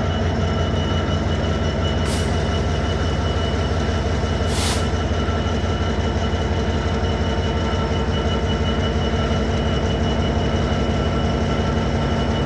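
A train running steadily at the platform, a constant machine drone with several held tones over a low rumble. Two short hisses cut in, about two seconds and four and a half seconds in.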